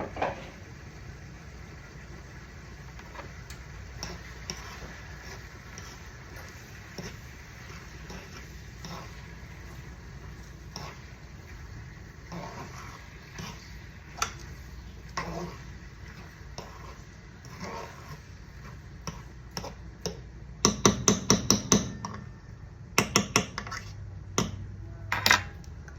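Spoon clinking and knocking against a pot while sauce is stirred, with scattered single taps and then quick runs of sharp knocks about three quarters of the way in and near the end.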